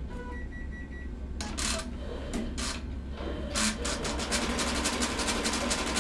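Multi-needle embroidery machine running over a steady low hum: a short run of high beeps about half a second in, a few separate bursts of noise, then fast, even clicking of the needles stitching from about four seconds in.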